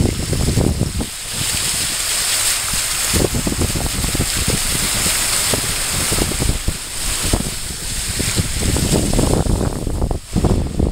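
Car driving through floodwater, its wheels throwing up a steady rushing spray of water from about a second in until near the end, with wind buffeting the microphone at the start and again at the end.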